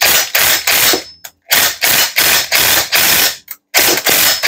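Cordless impact driver with a socket hammering on a chainsaw's reverse-threaded clutch to break it loose, in three bursts.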